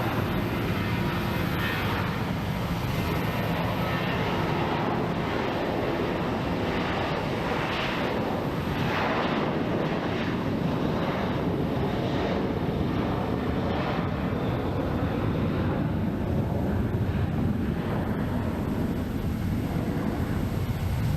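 Jet airliner engines running loud and steady, an even rushing noise with no break.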